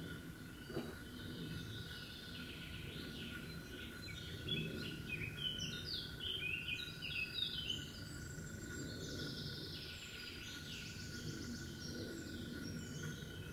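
A songbird singing a long, busy run of quick, varied high phrases, densest in the middle, over a thin steady whine and a low outdoor hum.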